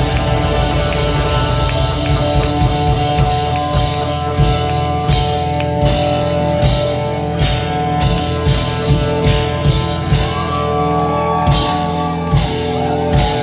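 Rock band playing: sustained guitar chords over a drum kit, with a kick drum beating regularly and cymbal crashes.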